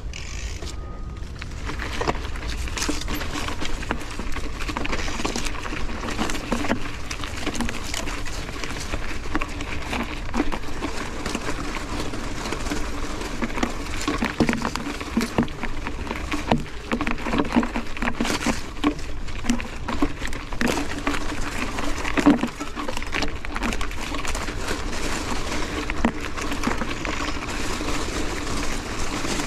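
Mountain bike ridden over rough, rocky ground: a steady rattle and crunch from the tyres, frame and chain, with many sharp knocks and a hard jolt about 22 seconds in.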